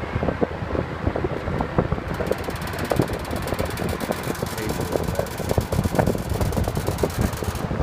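1966 GE Model W22 20-inch box fan with its five-wing plastic blade running on high, a loud roar of moving air. The wire grille cage rattles along with it in short irregular clicks.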